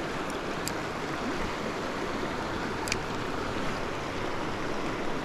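River water rushing steadily, with a few faint clicks about a second in and again near three seconds.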